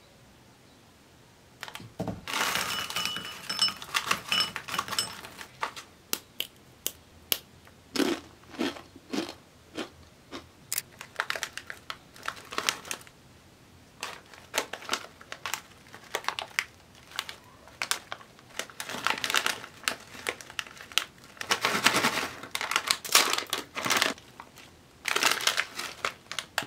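A Doritos Habanero Bites snack bag crinkling and crackling as it is handled and torn open, in many short irregular bursts with sharp snaps.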